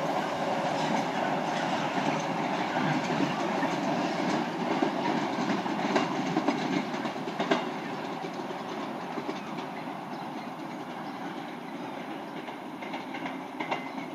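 Container freight train's wagons rolling away over the rails, rumbling and clattering over the rail joints as the sound slowly fades, with a few sharp clanks about six and seven and a half seconds in.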